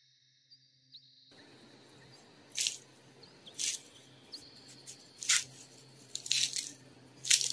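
Flaky baked puff pastry crunching: about five short, crisp crackles roughly a second apart.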